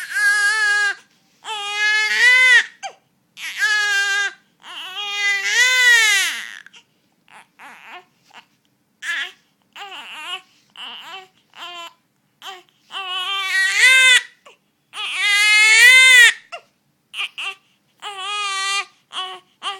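A one-month-old baby crying: four long, loud wails, each rising and then falling in pitch, then several seconds of short, quieter cries, then two more long wails about thirteen seconds in, and short cries again near the end.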